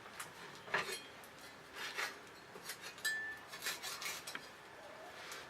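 Knife cutting through a raw whole chicken at the wing joint: a faint series of short scraping and rubbing sounds with a few light clicks.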